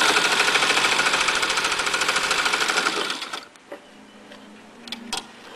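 White 619 sewing machine stitching at speed with a fast, even chatter, stopping abruptly about three seconds in. A few light clicks follow.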